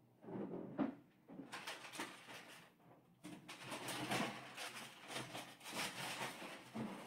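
A person moving about and handling things: irregular rustling and shuffling with a few light knocks and clicks.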